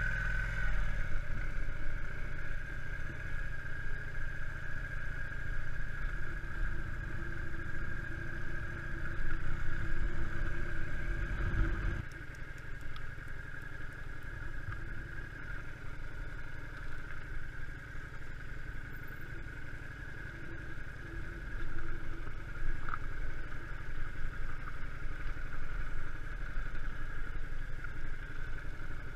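Yamaha Drag Star V-twin motorcycle engine running at low riding speed, its level rising and falling with the throttle. The low end of the sound drops abruptly about twelve seconds in.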